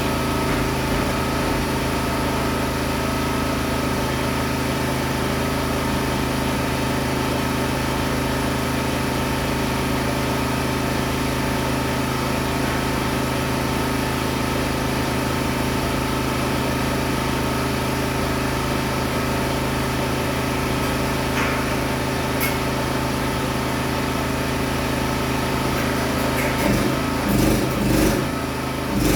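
An engine running steadily at a constant idle, with a few short knocks near the end.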